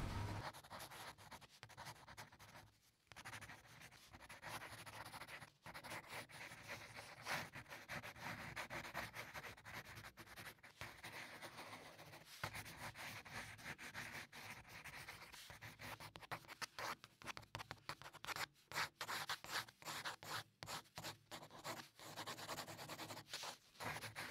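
Pencil scratching on sketchbook paper in short, irregular strokes as a drawing is sketched. The strokes come quicker and choppier in the second half.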